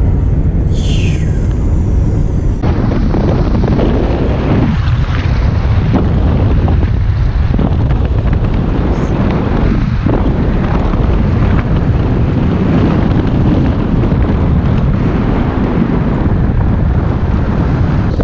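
A car driving on a road, with steady road and engine noise and heavy wind buffeting the microphone. The sound changes abruptly a couple of seconds in, after which the wind rush is louder and harsher.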